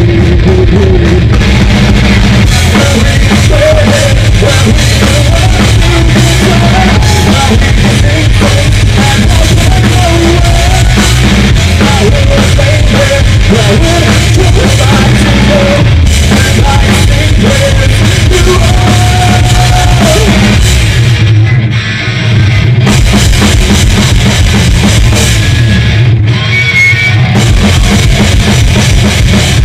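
Loud live rock music from a band: drum kit, electric guitar and a man singing, with a brief dip in the music a little over two-thirds through.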